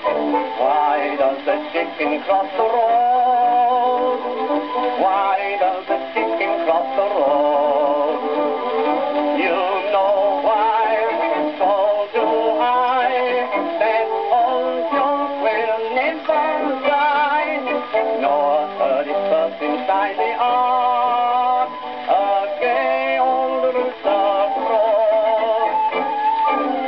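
A 1922 music-hall novelty song record, a 78 rpm disc, playing on a gramophone: a man singing with instrumental accompaniment. The sound is thin and narrow, with no deep bass and no high treble, typical of an acoustic-era recording.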